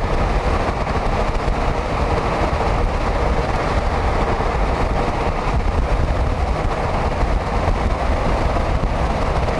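Steady road and wind rush of a moving van, heard from inside the cabin.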